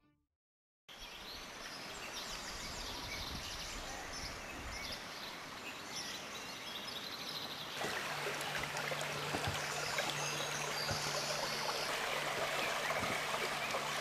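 Shallow stream running over stones: a steady rush of water with high repeated chirping above it. It starts about a second in, grows louder about eight seconds in, and a low steady hum joins there.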